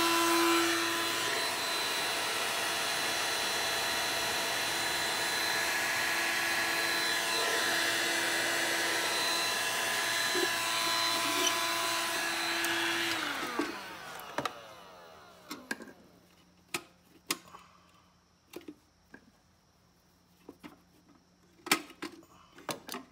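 Handheld heat gun's blower running steadily with a whine, switched off about 13 seconds in and winding down with a falling pitch. After it stops come scattered plastic clicks and knocks as the headlight lens is worked loose from its housing.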